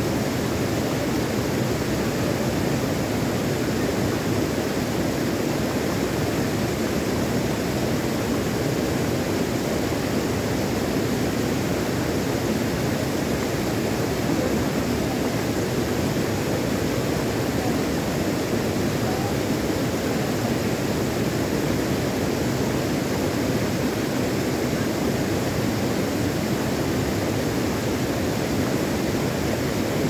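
Shallow stream flowing over rocks and gravel, a steady rushing of water.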